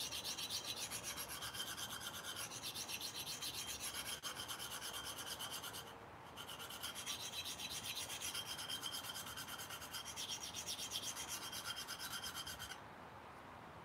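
Knife blade stroked fast and hard back and forth across a handheld sharpening stone, a rapid, even scraping of several strokes a second. It breaks off briefly about six seconds in, then runs on until shortly before the end. This is aggressive stock removal to grind a new tip onto a knife whose tip and heel were rounded over, before the edge angles are set.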